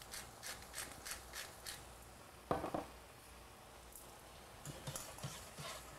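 Hand pepper mill grinding black pepper, with about four quick gritty strokes a second for the first second and a half. A brief louder sound follows about two and a half seconds in, then soft faint taps.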